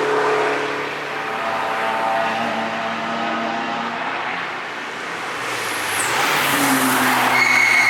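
Cars passing at speed on a race track: one car's engine fades as it drives away, then another car approaches and passes near the end, growing louder.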